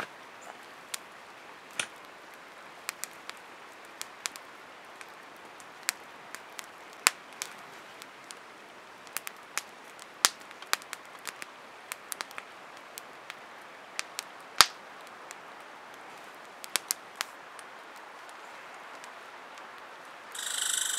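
Small wood campfire of sticks crackling: irregular sharp pops and snaps over a low hiss. A louder, steady hiss comes in near the end.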